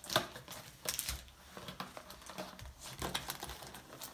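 Foil-wrapped AFL TeamCoach trading-card packets crinkling and tapping against each other and the wooden tabletop as they are stacked and squared up by hand, in a string of irregular light clicks and rustles.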